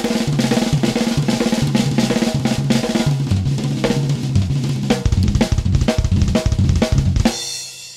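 Band music with a busy drum kit (snare, kick, cymbals and hi-hat) over a stepping bass line. The music stops abruptly about seven seconds in, leaving a brief fading ring.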